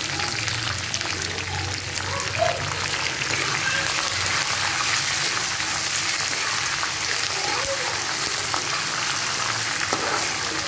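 Green chillies, curry leaves, dried red chillies and dal frying in hot oil in a metal kadai: a steady sizzle full of fine crackles, with a sharper pop about two seconds in, as a metal spatula stirs them around the pan.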